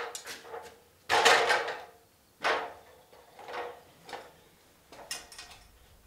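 Aluminium ladder clattering and knocking as it is moved and propped against a steel beam, then lighter knocks as it is climbed. The loudest clatter comes about a second in, a second strong knock follows about a second and a half in, then several fainter ones.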